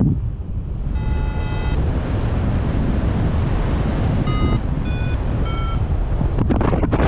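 Wind rushing over the microphone in flight, with an XCTracer variometer beeping over it: a longer, lower tone about a second in, then three short, higher beeps a little over half a second apart near the end.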